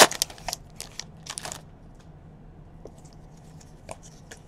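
A 2017 Donruss baseball card pack wrapper being crinkled and torn open, in sharp rustling bursts over the first second and a half. After that come a few faint clicks as the cards are thumbed through.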